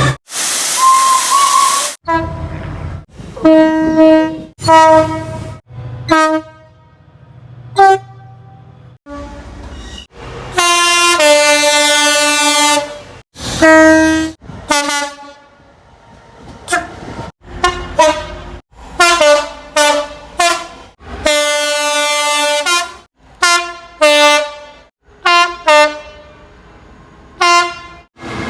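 Many train horn blasts from British locomotives and multiple units, cut together in quick succession: mostly short toots, with a couple of longer held blasts. The opening moments are a louder, noisier train passage.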